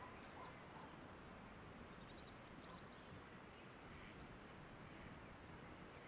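Very faint rural outdoor air ambience: a low steady hush with a few faint, distant bird chirps scattered through it.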